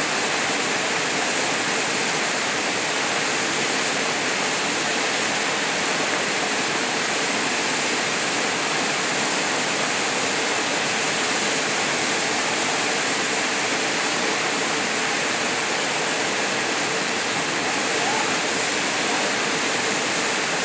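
A small waterfall pouring into a rocky plunge pool, giving a steady, even rush of water.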